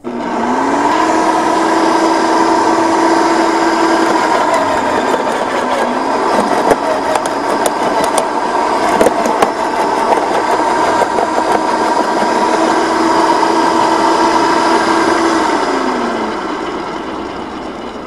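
TackLife electric wood chipper switched on and its motor whining up to speed, then pine branches being fed in and chipped, with cracks and knocks in the middle as the blades chew the wood and the motor's pitch sagging and recovering under the load. Near the end the motor is switched off and winds down.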